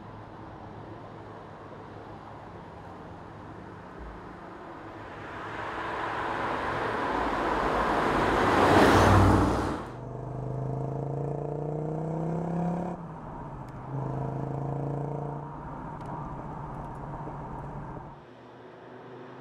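Audi quattro inline five-cylinder engine. It runs steadily at first, then builds to a loud rushing peak about nine seconds in that drops off suddenly. After that the engine note climbs in pitch as it accelerates, breaks off briefly, climbs again and fades.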